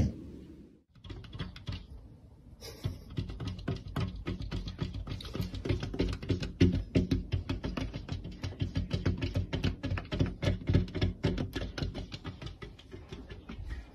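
A cat's paws and claws tapping and scratching rapidly on a window pane, a long, dense run of quick clicks and taps that starts about a second in.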